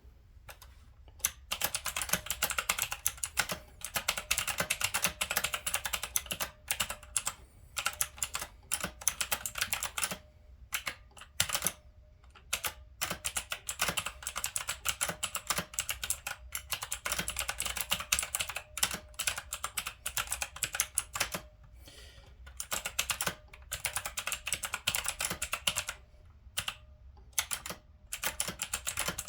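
Typing on an Onn mechanical keyboard: quick runs of key clicks, broken by short pauses of about a second a few times.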